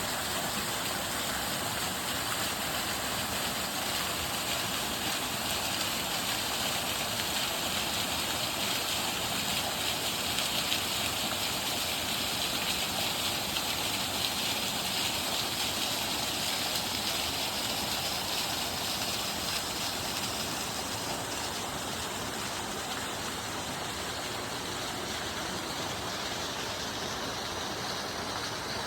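Steady rush of water from a waterfall, a continuous even hiss of falling and splashing water.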